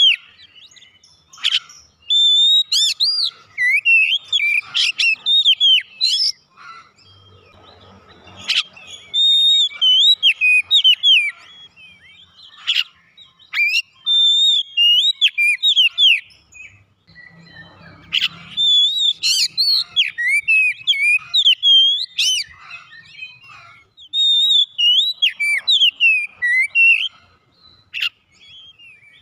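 Oriental magpie-robin singing: loud, varied whistled phrases that slide up and down in pitch, delivered in bursts of a few seconds with short pauses between them.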